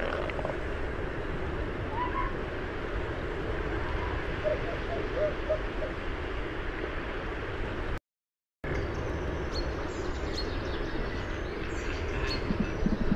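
Outdoor field ambience: a steady low rumbling background with a few faint short chirps, including a quick run of four. It cuts out for about half a second a little past the middle, then resumes with brief high-pitched chirps and clicks and a few low knocks near the end.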